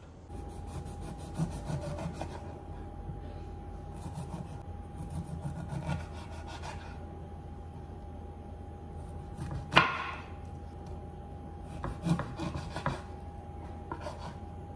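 Kitchen knife cutting the peel off a lemon against a wooden cutting board: runs of short scraping cuts, with one sharp knock of the blade on the board about ten seconds in. A faint steady hum runs underneath.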